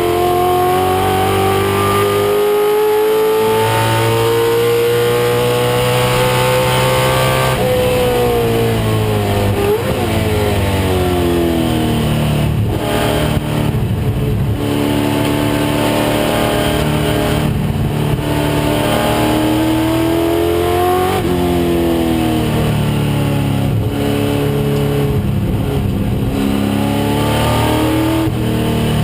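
1996 Ford Mustang race car's engine pulling hard on track. The revs climb steadily for about seven seconds, then fall away, followed by a string of shorter climbs and drops as the car accelerates, lifts and shifts.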